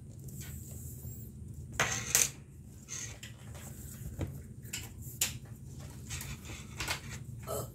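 Leather lace being pulled through a baseball glove's web lace holes while the glove is handled: irregular rustles and light clicks, the loudest about two seconds in, over a low steady hum.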